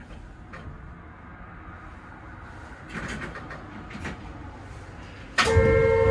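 Keihan 800 series train standing at a station: low background with a few faint clicks, then a loud, steady buzzer tone sounds suddenly near the end.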